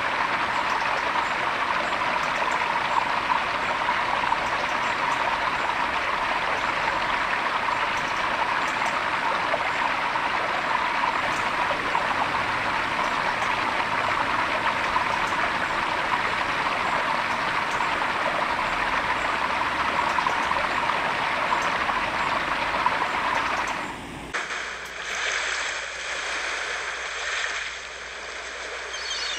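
Small rocky stream splashing over a low cascade: a steady rush of running water. About 24 seconds in it cuts off abruptly and a quieter, different sound takes over.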